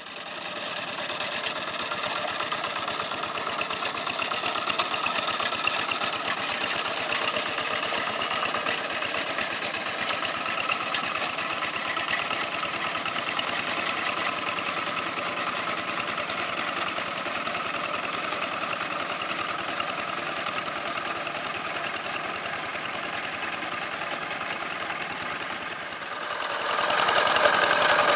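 Old Kubota single-cylinder diesel engine on a two-wheel hand tractor, running steadily under load with a fast, even clatter as it pulls cage wheels through paddy mud. It gets louder near the end.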